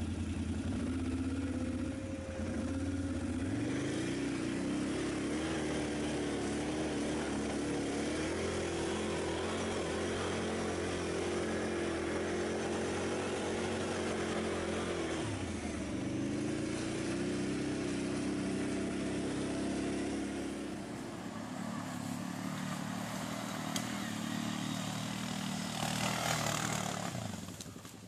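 ATV engine running under load on a trail, its revs climbing about three seconds in, dipping briefly a little past halfway and climbing again, then easing off. A loud rushing noise shortly before the end.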